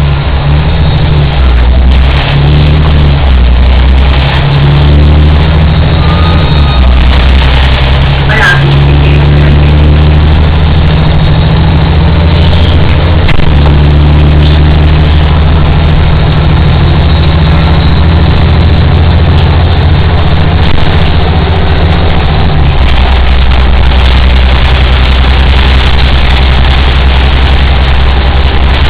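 Volvo 7700A articulated city bus engine running loudly under way, heard from inside the passenger cabin, its low note shifting up and down in steps. A short high squeak about eight seconds in.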